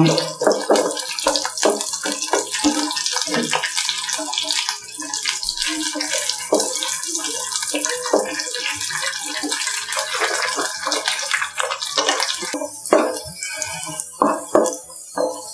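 Cashew nuts and raisins frying in ghee in a non-stick pan: a steady sizzle with many small crackles, and a wooden spatula now and then stirring through them.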